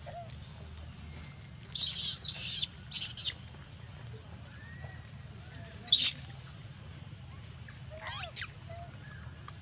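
Long-tailed macaques screeching in short, high-pitched bursts during a scuffle: two screams back to back about two seconds in, another just after, a single sharp one around six seconds and two fainter ones near the end, over a steady low hum.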